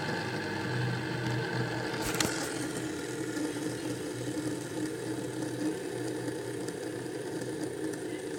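Fidget spinner spinning, its ball bearing giving a steady whirring hum that slowly fades as it winds down, with one click about two seconds in.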